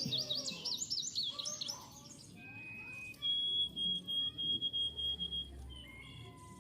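Small finches chirping: a quick run of high, sliding chirps in the first second and a half, then scattered softer chirps. A steady high whistle-like tone runs for about two seconds, starting a little after three seconds in.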